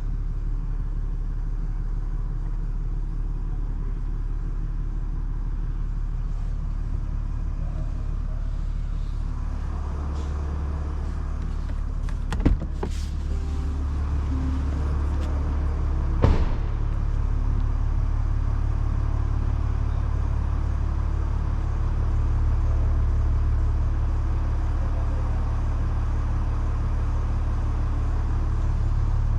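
2024 Range Rover Sport running with a steady low rumble. Two sharp clicks about twelve and sixteen seconds in, after which the rumble grows slightly louder.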